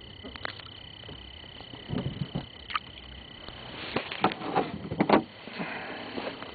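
Scattered knocks and clatters of handling in a small fishing boat while a hooked fish is brought in, loudest in a cluster around the middle, over a steady high-pitched whine.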